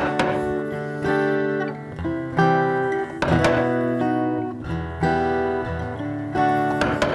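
Background music: an acoustic guitar strumming a slow chord progression, a new chord about every second.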